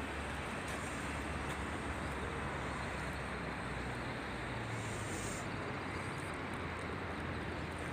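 Steady open-air city background noise: a continuous hiss with a low rumble underneath, unchanging throughout.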